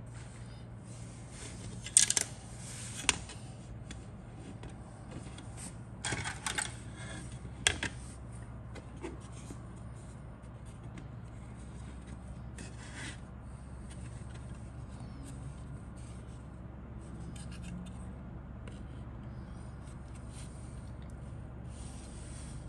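Plastic model kit fuselage halves handled on a cutting mat: a few sharp clicks and scrapes of hard plastic, loudest about two seconds in and again between six and eight seconds in, over a steady low hum.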